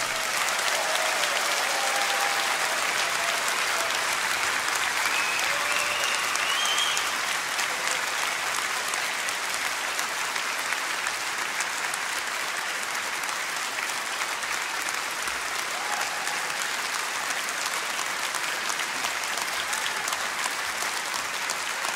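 Large audience in a concert hall applauding steadily, with a few short cheers rising over the clapping about five to seven seconds in.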